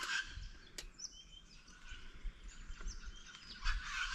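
Birds chirping here and there in the background, with a couple of short clicks near the start.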